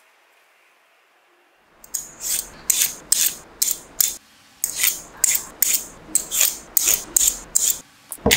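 A vegetable peeler scraping thin strips off raw carrot and burdock root in quick, even strokes, about two or three a second, starting about two seconds in.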